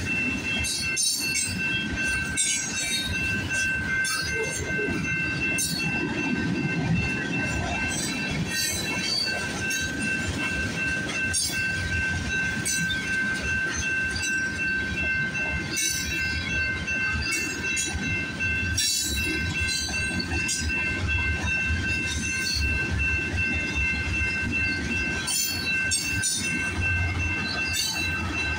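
Freight cars of a long CPKC freight train rolling past at a level crossing: a steady rumble with irregular clacks of wheels over rail joints, and a steady high-pitched tone over it throughout.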